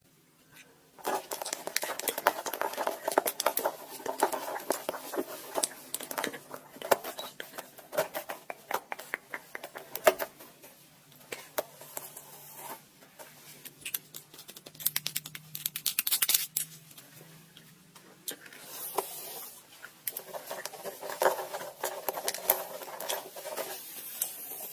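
Close-miked ASMR trigger sounds: dense, rapid crackling and scratching that starts about a second in, eases off in the middle and builds again near the end.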